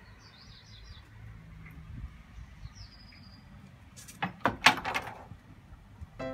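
Faint bird chirps, then a quick run of about six sharp knocks or cracks over about a second.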